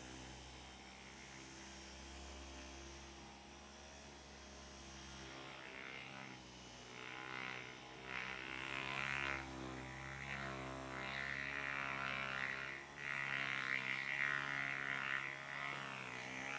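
Electric handheld massager humming, its pitch wavering, with louder buzzing stretches from about six seconds in.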